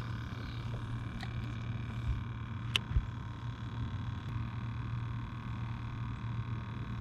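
Steady low hum of a small electric motor with a faint high whine over it, broken by a few light clicks and taps, the sharpest just under three seconds in.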